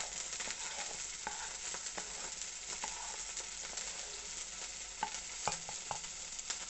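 Chopped shallots, ginger, garlic and curry leaves sizzling in coconut oil in a nonstick pan, stirred with a wooden spatula that scrapes through them; a few sharper clicks about five seconds in.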